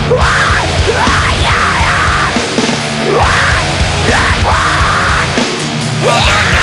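Loud death-grind metal song: heavily distorted guitars and drums.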